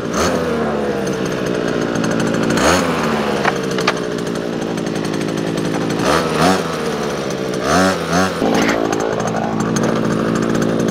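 Two-stroke petrol engine of a half-scale RC go-kart, its revs blipped up sharply and let fall slowly back several times, then settling to a steady idle in the last few seconds. It is being run in at part throttle, not yet opened up fully.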